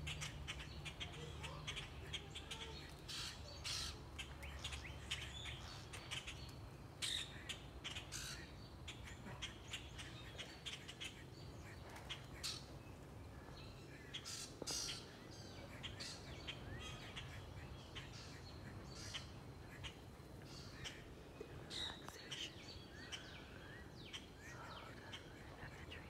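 Wild birds calling in the pine trees: many short chirps and call notes scattered irregularly.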